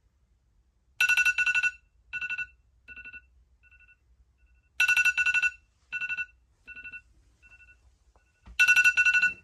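A trilling bell ring, sounded three times, each followed by fainter repeats that die away like an echo.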